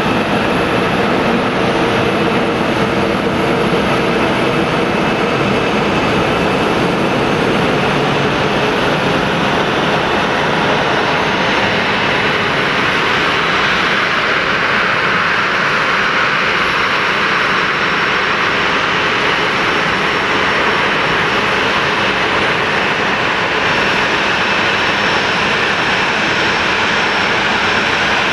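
Boeing 737-800's CFM56-7B turbofan engines running at taxi power: a steady jet roar with a hissing whine. The whine grows brighter about halfway through as the engine inlets face the listener, then eases.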